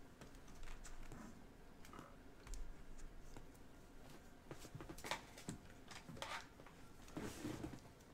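Quiet handling noises as trading cards and supplies are handled: scattered light clicks and a few short rustles, the loudest a cluster of rustles in the second half.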